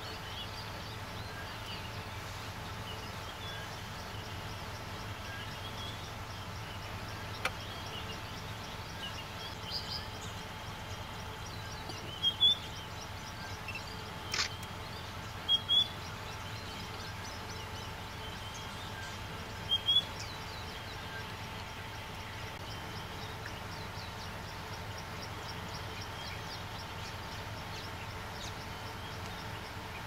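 Bushveld ambience: a steady insect drone with fast, even high ticking, and a few short bird chirps near the middle, plus a single sharp click.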